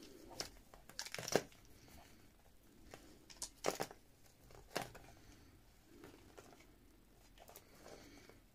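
Paper and craft materials being handled: soft rustling and crinkling with a handful of small sharp clicks and taps.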